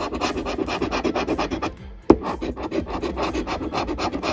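A metal collector coin scratching the coating off a paper lottery scratch-off ticket in rapid strokes, about ten a second. There is a short pause about two seconds in, then a sharp tap before the scratching goes on.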